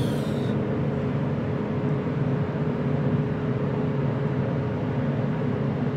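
Steady mechanical hum with a constant mid-pitched tone running under it, with no shots.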